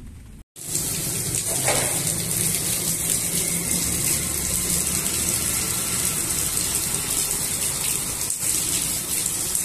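Heavy rain pouring down: a loud, steady, dense hiss that starts suddenly about half a second in and holds even.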